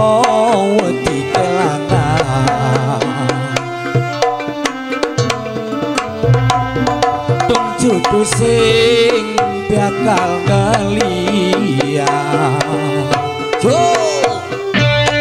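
Campursari music: Javanese kendang hand drum played in a busy pattern under held keyboard and gamelan-style tones, with a melody line that slides up and down in pitch.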